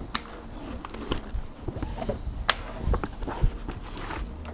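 Handling noise as a motorcycle helmet is pulled out of its fabric helmet bag: cloth rustling with scattered knocks and taps, the sharpest knock about two and a half seconds in.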